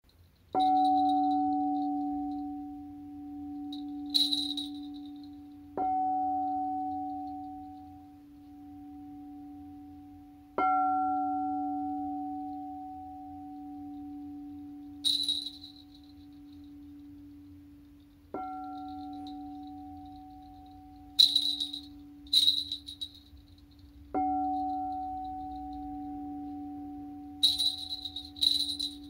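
Frosted quartz crystal singing bowl struck with a mallet five times, each strike ringing on in a low steady hum with a higher overtone that slowly fades. Between the strikes come several short, bright, high-pitched chimes, some in quick pairs, from tingsha cymbals.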